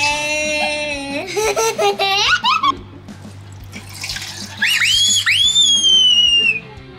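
Liquid poured from a plastic measuring jug into a hollowed pumpkin sitting in a stainless steel bowl, splashing. Over it play background music with held notes and high swooping tones that slide downward in the second half.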